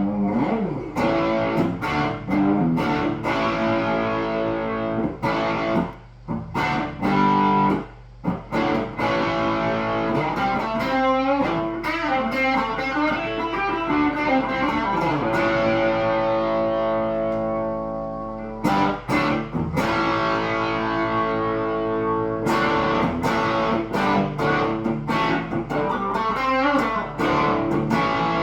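Electric guitar played through a Marshall Origin 20 valve combo amp, pushed by an Ibanez Tube Screamer overdrive pedal: overdriven chords and riffs with brief stops. In the middle one chord is left to ring out and fade for a few seconds before the playing picks up again.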